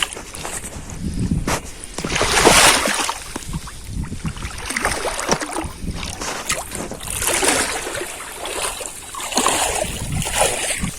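Water splashing and swishing in several surges, with wind rumbling on the microphone.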